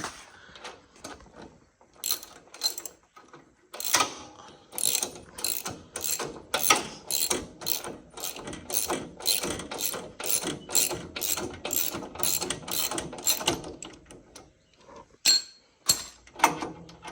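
Hand ratchet wrench clicking in repeated strokes, about two to three a second, as bolts on the motorcycle's lower mounts are worked loose. A few separate clicks come first, and a few more near the end.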